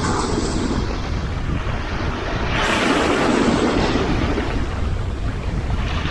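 Sea waves washing on the shore, one wave surging and hissing about halfway through, with wind rumbling on the microphone.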